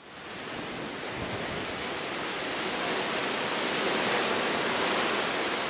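Steady rush of wind and of sea water sweeping along a moving cruise ship's hull, heard from the open deck. It fades in at the start and grows slightly louder.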